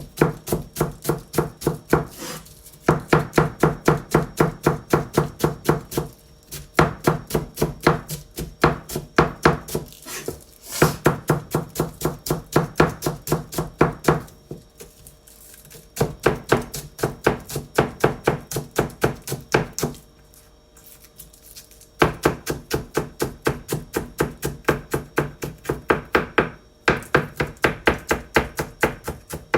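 A kitchen knife finely shredding cabbage on a cutting board: fast, even chopping strokes, about five a second, in runs of several seconds with brief pauses between them.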